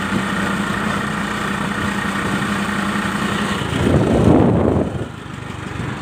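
Vehicle engine running steadily on the move, with a steady hum until about three and a half seconds in. A loud burst of wind rumble on the microphone follows about four seconds in, then it goes quieter.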